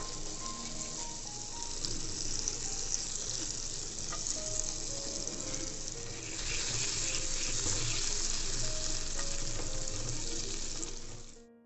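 Food sizzling and frying in hot oil in a pan, a steady hiss that grows louder about halfway through and cuts off abruptly near the end. Soft background music plays underneath.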